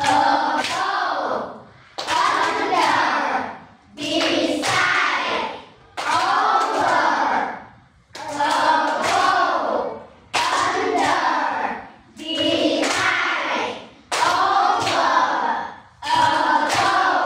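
A class of young children chanting English words together in unison, one word about every two seconds, clapping along as they say each one. There are about nine chanted, clapped words in a row.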